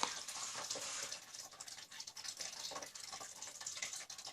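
Wet, sticky glue-based slime mixture being stirred in a bowl, a soft squishing with many small wet clicks, as the contact lens solution activator starts to thicken it.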